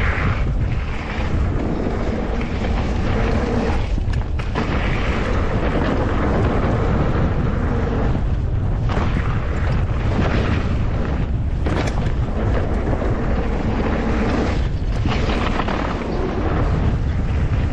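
Steady wind rumble on a mountain bike rider's action camera microphone at speed, over the noise of the tyres rolling on a wet dirt and gravel trail.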